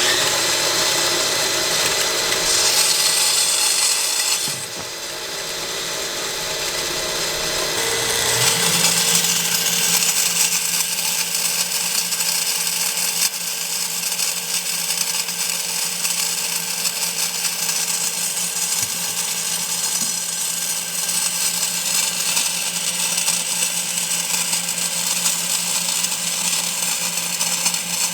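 Homemade grain grinder built from table saw parts running on its electric motor, spinning a round toothed saw blade against field corn, with a steady whirr that drops in level about four seconds in and then builds back. The toothed blade is failing to grind the kernels.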